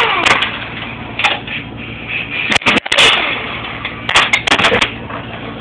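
Scattered sharp clicks and metal knocks over a steady rushing noise, from handling a Ford A4LD automatic transmission's aluminium case on a metal workbench. There is a cluster of knocks about three seconds in and again near four and a half seconds.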